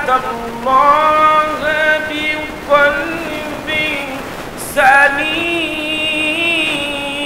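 A man's voice chanting in a long, drawn-out melodic tune through a microphone and PA, holding wavering notes with a few short breaks for breath: a preacher's sung delivery during a sermon.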